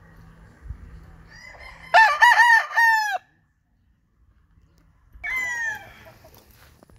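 Young rooster (a 5½-month-old stag) crowing: a loud crow about two seconds in, then a fainter, shorter crow a few seconds later.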